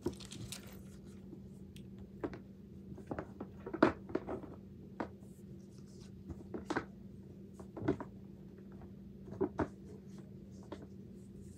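Plastic fidget toys being handled and set down into a container: irregular light clicks and knocks, the sharpest about four seconds in, over a steady low hum.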